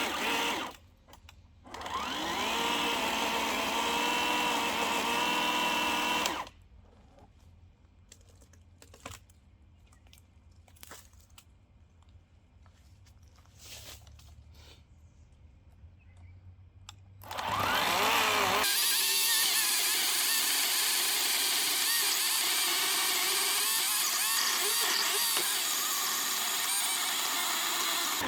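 Einhell 18 V cordless chainsaw running in bursts: the electric motor and chain whir for several seconds, then stop. After a quiet pause with a few light clicks, the motor spins up with a rising whine and runs steadily for about ten seconds.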